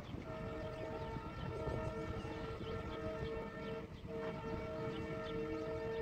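Indian Railways express train coaches running past with a steady rumble and wheel clatter, while a train horn sounds in long held notes with a short break about four seconds in.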